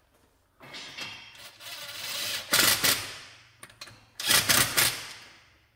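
Impact wrench working a wheel-hub bolt: a softer run of rapid hammering, then two loud short bursts of hammering about a second and a half apart.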